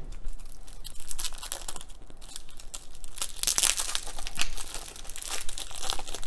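Clear plastic bag around a stack of playing cards being crinkled and torn open, a dense crackle of rustling plastic, loudest about three and a half seconds in.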